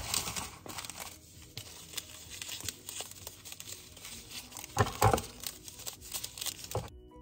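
Paper and cardboard packaging being handled: irregular rustling, crinkling and small clicks as boxes of sugar are moved and put away, with a louder rustle about five seconds in.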